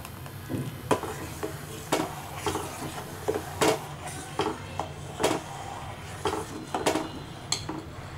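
Steel spoon clinking and scraping against a stainless steel saucepan while milk custard is stirred as it thickens, in irregular knocks one or two a second over a steady low hum.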